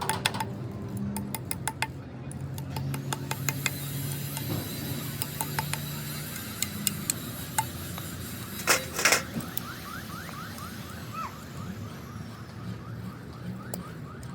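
Scattered metallic clinks and clicks, with a louder clatter about nine seconds in, over a faint steady low hum.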